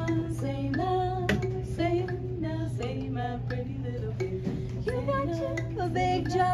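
Several women's voices singing a slow melody in close harmony, with light plucked notes from a small hand-held kalimba.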